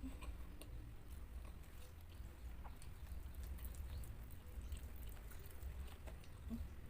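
Close-miked chewing: a mouthful of raw leafy greens and rice being chewed, with scattered small wet mouth clicks.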